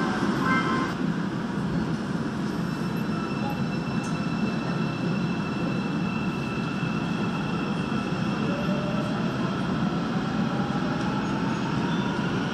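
Busan Metro Line 3 train pulling away from a station, heard from inside the car. A door warning beep stops about a second in, then the train runs with a steady rumble and a motor whine that rises in pitch as it gathers speed.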